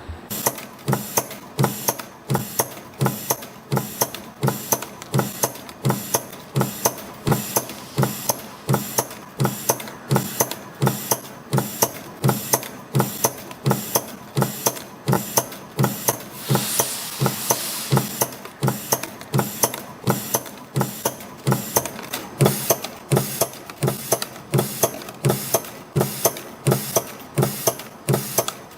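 CNC piston-ring forming machine running, coiling flat steel wire into rings. It makes an even, repeating clatter of sharp mechanical clicks with each forming cycle, with a brief hiss about halfway through.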